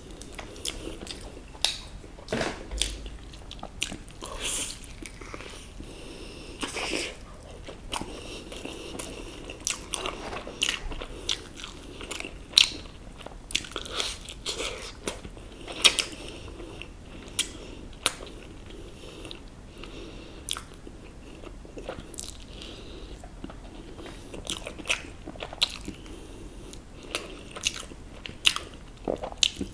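Close-miked biting and chewing of crispy fried chicken: irregular crunches and crackles of the fried coating, with quieter chewing between bites.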